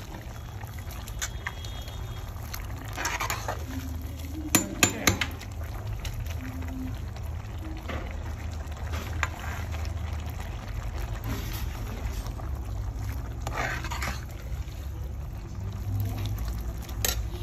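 Metal spoon stirring and lifting spaghetti in a pot of hot cooking water: sloshing and splashing, with a couple of sharp clinks of the spoon against the pot about four and a half seconds in, over a steady low rumble.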